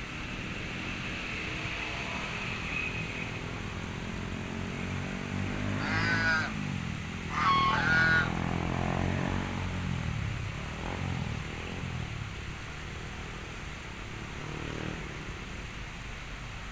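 Two loud bouts of quacking from white domestic ducks, about six and eight seconds in, over a steady low hum that swells and falls away in the middle.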